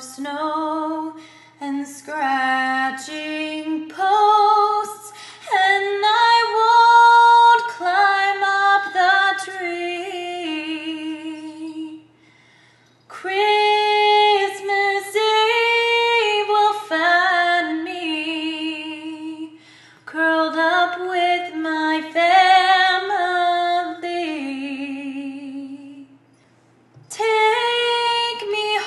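A woman singing solo and unaccompanied, holding notes with vibrato in long phrases separated by short pauses.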